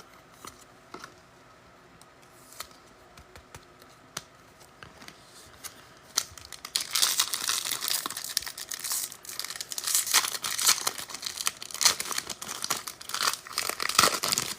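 A foil trading-card pack being torn open, its wrapper crinkling loudly, starting about six and a half seconds in and stopping just before the end; before that, only faint taps of cards being handled.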